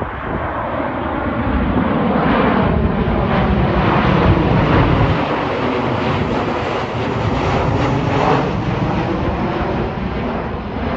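Jet airliner on approach passing low overhead. Its engine roar builds to a peak about four seconds in and then eases off, with the tone falling in pitch as it goes by.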